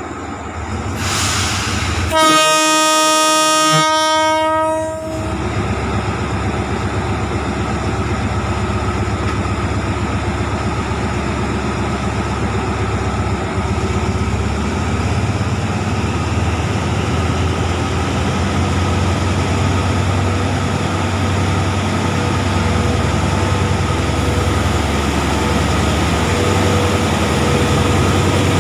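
Hitachi diesel locomotive no. 4504 sounds its horn once, a single blast of about three seconds starting around two seconds in. Its diesel engine then runs steadily as it approaches and passes close by.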